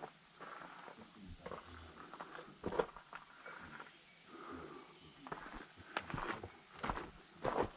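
Insects chirring in a steady, high, pulsing drone, with a few sharp knocks at irregular moments, the loudest near the end.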